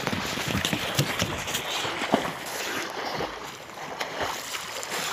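Water splashing from a swimmer's front-crawl arm strokes: irregular splashes over a steady rushing noise.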